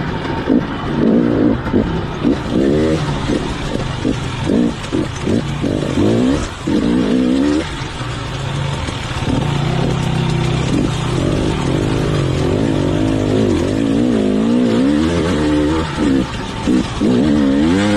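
Dirt bike engine revving up and down over and over as the rider works the throttle over rough ground, heard from on the bike, with a steadier stretch about halfway through.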